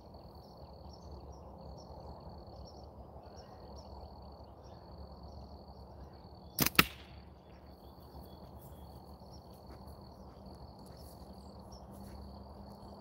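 Slingshot shot with a scatter pouch of about 25 .177 BBs: a sharp double snap of the released bands and pouch about six and a half seconds in. A high insect trill comes and goes in short stretches in the background.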